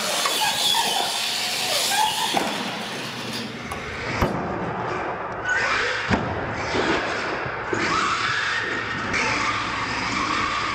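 Radio-controlled monster trucks running on a concrete floor: motors whining and tyres rolling. Two sharp knocks, about four and six seconds in, as a truck lands or strikes a ramp.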